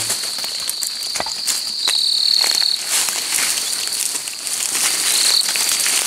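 Night insects keep up a continuous high-pitched trill. A second, slightly lower trill joins for about a second near the two-second mark and again briefly around five seconds. Scattered light crackles of dry leaf litter and twigs are heard as the undergrowth is brushed or stepped through.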